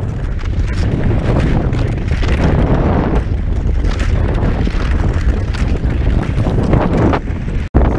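Wind buffeting an action camera's microphone during cross-country skiing, with repeated swishes of skis and poles in crusty snow about once a second. The sound drops out briefly near the end.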